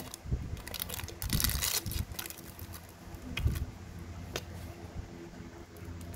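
Handling noises of a metal Zippo lighter: a few sharp clicks and knocks, a short scraping rustle about a second in, and a low thump a few seconds later.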